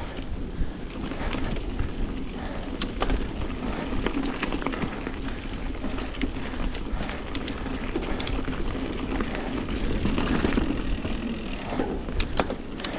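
Mountain bike ridden over a rough, rocky stretch of trail: tyres rumbling on dirt and rock, with sharp clicks and knocks from the bike over bumps, under steady wind rumble on the microphone.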